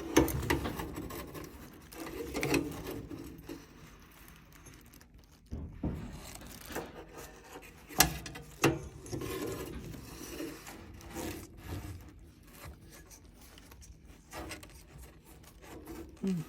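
Irregular rubbing, scraping and knocking from handling an air-conditioning unit while working a trapped bird out of it, with a sharp knock about eight seconds in.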